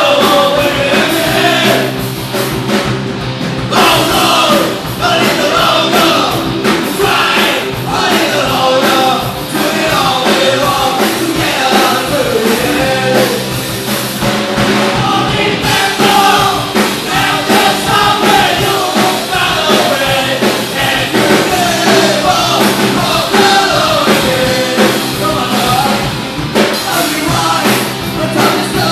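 Punk rock song with a singing voice over a loud, dense band accompaniment.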